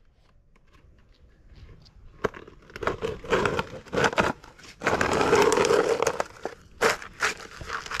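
A clay bowl scraping against a wooden post while gritty wet cement mortar is packed into it with a stick: irregular scraping and crunching with sharp clicks. It starts about two seconds in and is loudest around five to six seconds in.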